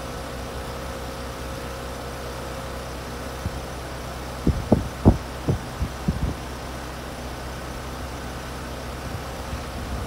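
Outdoor unit of a 3-ton Gibson heat pump running: a steady hum from its condenser fan and compressor, with a faint steady tone. About halfway through comes a short cluster of low thumps, louder than the hum.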